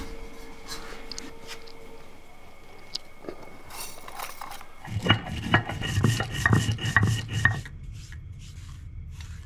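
Fried fenugreek seeds being ground on a shil-nora, a flat stone slab worked with a hand-held stone. A few light knocks come first, then a quick run of scraping, rubbing strokes from about five seconds in, stopping after about two and a half seconds.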